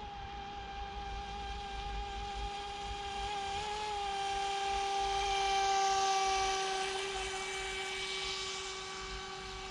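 Electric 3S RC speedboat running flat out at full throttle: a steady high-pitched motor and propeller whine that swells as the boat passes closest about six seconds in, then fades as it moves away.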